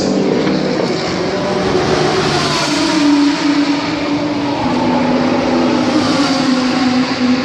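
A Renault RS01's twin-turbo V6 race engine idling steadily while the car stands in the pit box. Its note shifts a little and settles slightly lower about halfway through.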